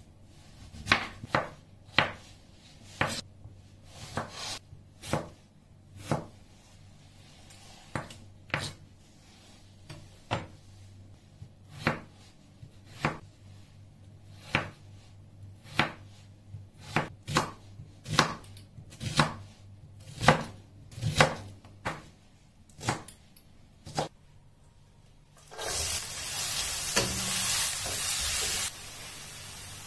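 Kitchen knife chopping baby marrow and potatoes on a wooden cutting board, with sharp single strikes about once a second, some in quick pairs. About 25 seconds in, chopped onions start sizzling loudly in hot vegetable oil in a frying pan as they are stirred, and the sizzle drops to a quieter level near the end.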